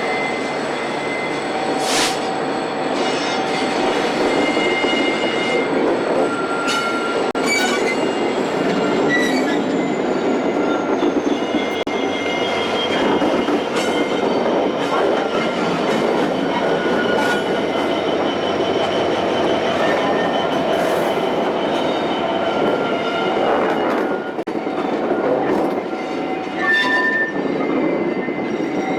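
A train rolling past, its wheels squealing on the rails in shifting high whistling tones, with scattered sharp clicks and knocks from the wheels.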